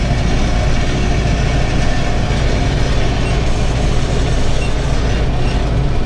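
Tractor engine and PTO-driven round baler running steadily, heard from inside the tractor cab, with an unexplained grinding from the baler that is new to the driver.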